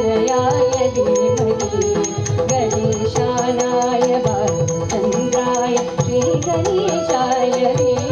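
Live Odissi dance music: a voice sings a gliding melody over a steady drone, with hand-drum strokes keeping a regular rhythm.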